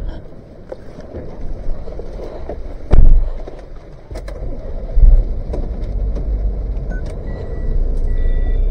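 Inside a Daihatsu van in wind and rain: a door slams shut about three seconds in, and about two seconds later the engine starts and keeps running with a steady low rumble. Short electronic beeps sound near the end as it is put into reverse.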